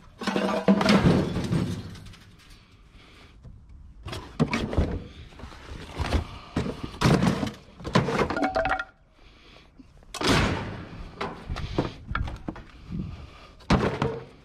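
Scrap steel being handled and loaded: a run of clanks and thuds in about six bursts, some with a brief metallic ring.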